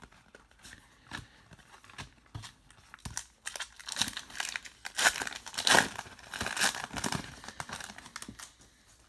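Foil trading-card pack wrapper crinkling as it is torn open and pulled off the cards. The crinkling builds about three and a half seconds in and is loudest around the middle. Before it come a few light clicks of cards being handled.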